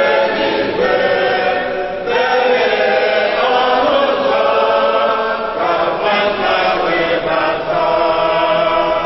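Church congregation singing together as a group, in long held phrases with short breaks between them.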